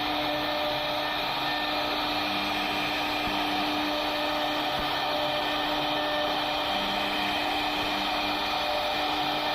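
CNC router spindle running steadily as it carves a wooden door panel: a constant whine over a broad hiss, with faint tones that come and go.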